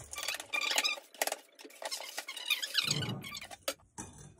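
A knife blade scraping and squeaking against the inside of a steel springform ring as it is run around a baked cake to loosen it, with scattered clicks and a dull knock of the metal pan about three seconds in.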